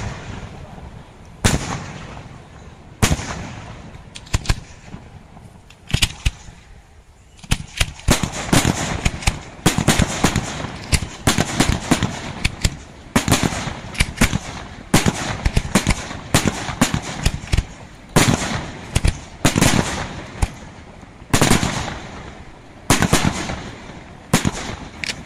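Aerial fireworks bursting with loud bangs, a second or two apart at first. From about eight seconds in they become a rapid barrage of many overlapping bangs.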